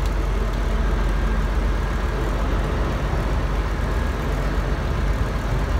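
Semi truck's diesel engine running steadily with a deep, low rumble, the tractor manoeuvring at low speed.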